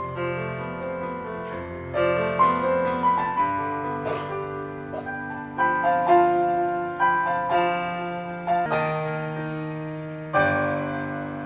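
Solo piano music: notes and chords struck about every half second to a second, each left to ring and fade.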